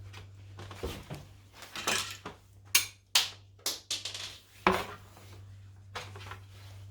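Irregular clicks, knocks and clatter of an air conditioner's indoor-unit covers and wire connectors being handled and pulled during dismantling, with a few sharper knocks in the middle, over a steady low hum.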